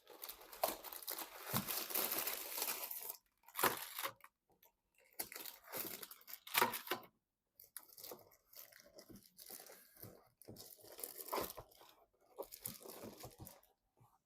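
Packaging being handled: crinkling and tearing in irregular bursts with short pauses, louder in the first half.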